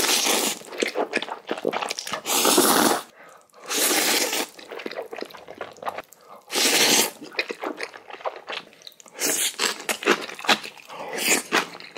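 Close-miked eating of Chapagetti black bean noodles with kimchi: about five long, noisy noodle slurps of roughly a second each, with crunchy chewing and wet mouth clicks in between.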